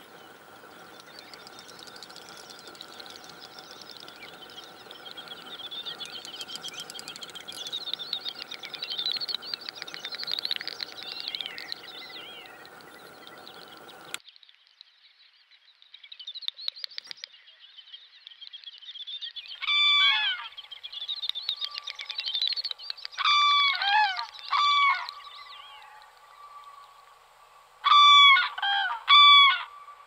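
Common cranes trumpeting: loud, ringing honk-like calls in short bouts, starting about two-thirds of the way in, with the loudest bout near the end. Before that, high twittering and trilling bird calls, which cut off suddenly about halfway through.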